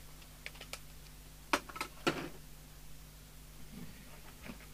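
Small clicks and two sharper knocks of hands handling tools on a workbench, over a low steady hum.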